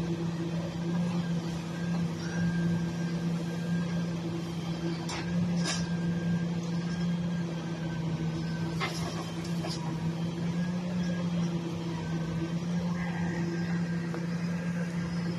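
Grapple loader truck's diesel engine running with a steady hum while it powers the hydraulic boom picking up brush. A few sharp knocks stand out around five to six seconds in and again about nine seconds in.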